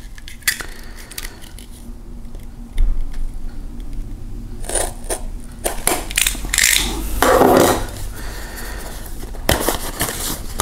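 A blade scraping through the seal sticker on a small cardboard box, with clicks and scuffs as the box is handled and a thump about three seconds in. Near the end the cardboard flap is pulled open.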